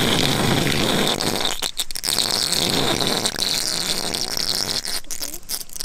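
Water being sucked into the inlet of a PVC siphon pipe: a continuous gurgling sucking sound, heard close up, with brief breaks about two seconds in and near the end.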